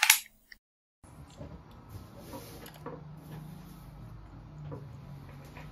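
A cassette tape pushed into a car stereo deck with a short mechanical clunk, then faint room tone with a low hum and a few soft ticks.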